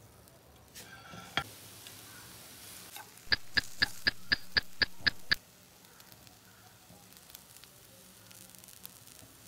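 Egg-topped instant noodles faintly sizzling in a frying pan. A little past a third of the way in, a run of nine sharp, evenly spaced clicks, about four a second, sounds over a louder hiss and then stops.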